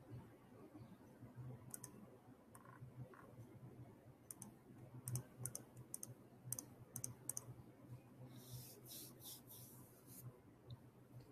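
Faint, scattered clicks of fingers tapping at a device, a dozen or so single clicks followed by a denser run near the end, over a low steady hum.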